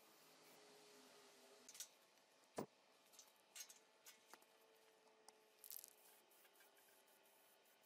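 An aerosol spray-paint can giving three short hissing sprays, with one sharp click between the first and second.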